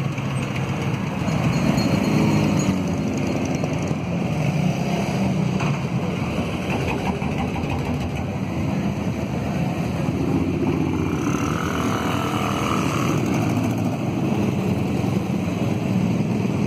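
Several motorcycles, cruisers and motor trikes among them, pass slowly in procession with their engines running steadily at low speed.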